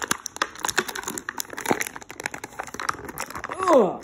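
Rapid irregular clicks and crinkles of plastic toy packaging being handled. Near the end a voice slides down in pitch.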